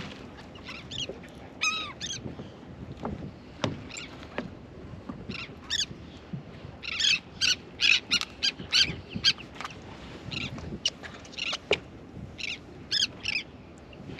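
Seabirds calling overhead: a run of short, harsh, repeated calls, thickest in the middle and again near the end, with a few faint knocks between them.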